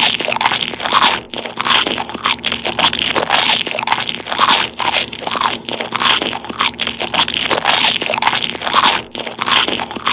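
A person chewing gum close to the microphone: wet, smacking chews repeating in a steady rhythm.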